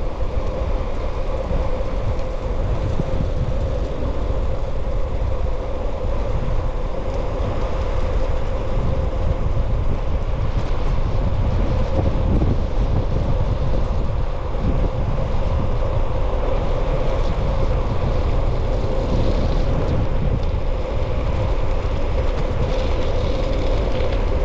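Wind buffeting the microphone and tyres rattling over a rough unpaved road while riding, with a steady mid-pitched hum throughout.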